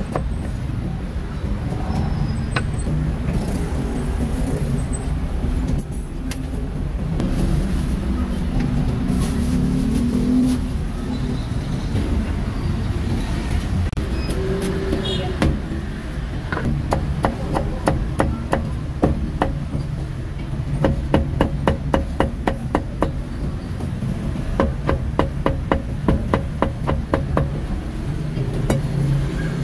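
Cleaver chopping food on a thick wooden chopping block: sharp knocks, scattered at first, then fast even runs of about three chops a second through the second half, over a steady rumble of street traffic.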